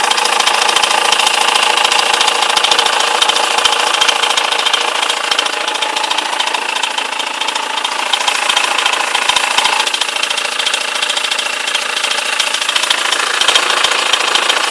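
BMW E91's M47 four-cylinder diesel engine running steadily, with a fast ticking clatter: the strange noise the owner is recording. Its tone shifts slightly about ten seconds in.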